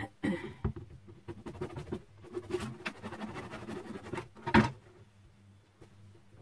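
A knife cutting through a bread roll on a wooden cutting board: a run of small scratchy, rasping strokes, with one sharp knock about two-thirds of the way through.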